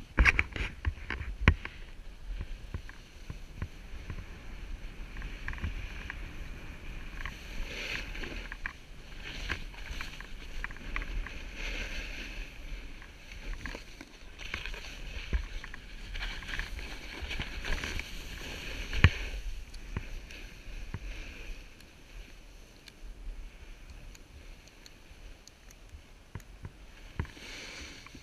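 Never Summer Proto HDX snowboard sliding and carving on packed snow: a scraping hiss of base and edges that swells with each turn. Sharp knocks come in the first two seconds, and one loud knock about two-thirds of the way through.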